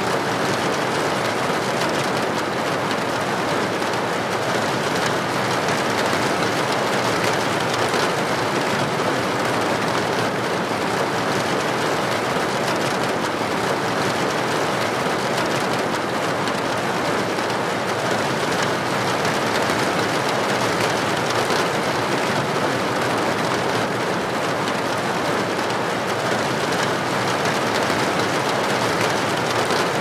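Heavy rain falling steadily on corrugated metal roofs and leaves, a dense, even hiss with no thunder.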